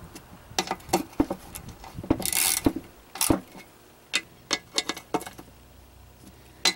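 Scattered metal clicks and taps as bolts are fitted and tightened into an ATV's aluminium recoil starter cover, with a short rattle a little over two seconds in.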